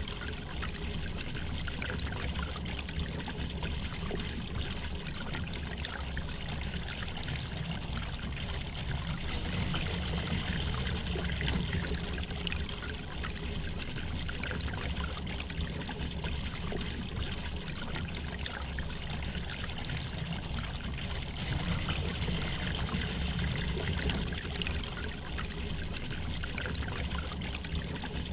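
River water flowing steadily over stones, a continuous gentle rush with trickling and babbling.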